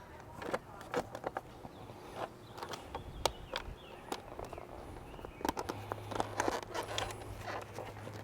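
Irregular clicks, knocks and rattles as a BMW S1000RR motorcycle seat is fitted back into place over the battery-tender wiring. A low steady hum comes in about six seconds in.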